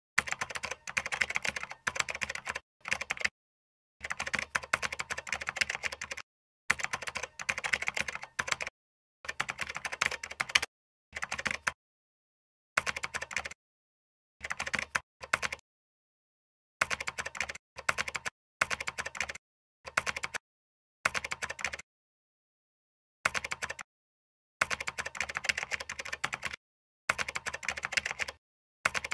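Typing on a computer keyboard: quick runs of key clicks, each lasting about half a second to two seconds, broken by short pauses of dead silence.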